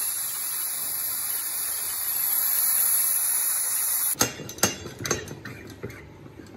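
Steam hissing steadily out of a pressure cooker's vent as the pressure is let off, then cutting off suddenly about four seconds in. After it come a run of sharp metallic clicks and knocks from the cooker's lid and handle being handled.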